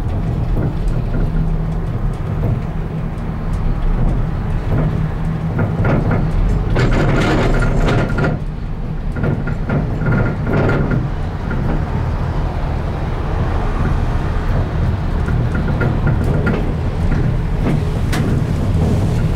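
Gondola ride: a steady low rumble, with irregular clattering and rattling from about five to eleven seconds in.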